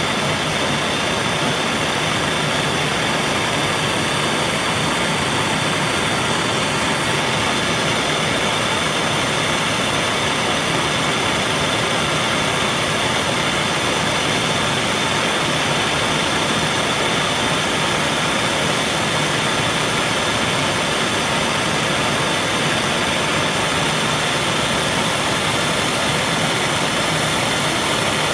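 Gas brazing torch burning steadily, a constant rushing hiss that does not change, as it heats a steel washer and threaded rod to brazing heat.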